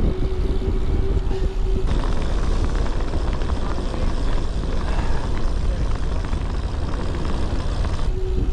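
Wind rushing over the microphone of a chest-mounted camera on a moving road bike, a dense low rumble throughout. A steady hum sounds for about the first two seconds and comes back near the end.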